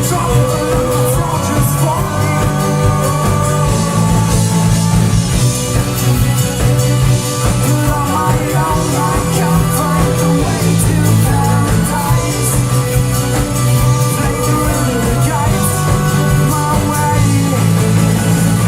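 Live rock band playing loudly, with a voice singing over the band.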